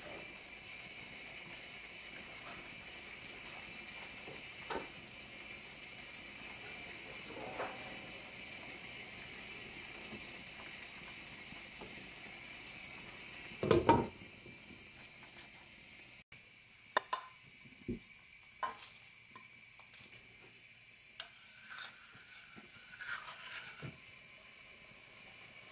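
Beet and tomato mixture frying in a non-stick pan, with a steady faint sizzle and light scrapes of a wooden spatula stirring it, and one loud knock about 14 seconds in. After a cut the sizzle is quieter, and sharp clicks of a utensil against a stainless steel stock pot come every second or so.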